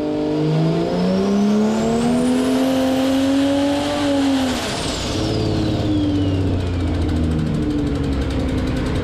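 Turbocharged BMW B58 inline-six on an engine dyno revving up under load, its pitch climbing steadily with a high turbo whistle rising alongside. About four and a half seconds in the throttle is cut: the revs drop sharply and the turbo whine winds down over the next two seconds while the engine runs on at lower speed.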